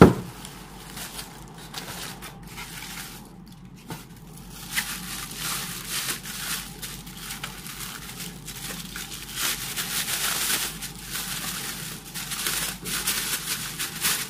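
Clear plastic bag crinkling and rustling as a car speaker is pulled out of its wrapping, in irregular bursts that get busier about halfway through. A sharp knock right at the start.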